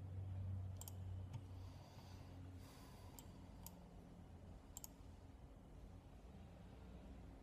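Computer mouse buttons clicking: about four sharp single clicks at uneven intervals. A faint low hum runs under the first half.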